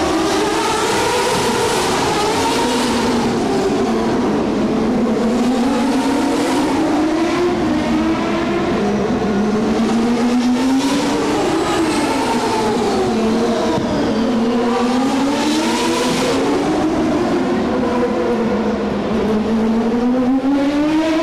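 Race cars running on the circuit, several engines at once, their pitch repeatedly sweeping down and climbing again as they pass and accelerate.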